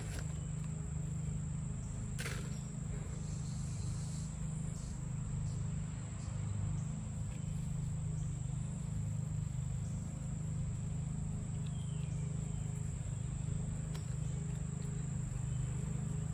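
Insects trilling steadily at one high pitch over a low steady hum, with a brief click about two seconds in.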